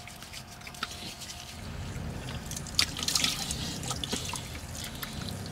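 Water splashing and dripping as hands scoop it from a small sink onto a face: a light trickle with scattered drips and a few louder splashes about three seconds in.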